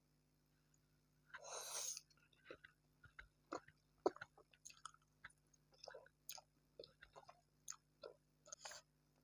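Close-miked eating of fried instant noodles and tempura: a noisy bite or slurp about a second and a half in, then steady chewing with short wet smacks and crunches, several a second.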